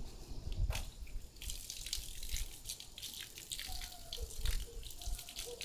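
Water from a garden hose spraying and splashing on a car body, getting stronger about a second and a half in.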